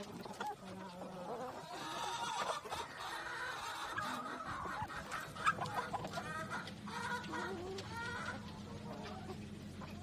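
A flock of chickens clucking, many short calls overlapping at once.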